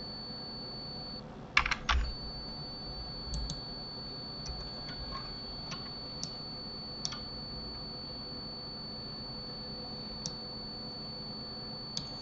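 Computer keyboard and mouse clicks: a quick burst of clicks about two seconds in, then scattered single clicks. A steady high whine runs underneath.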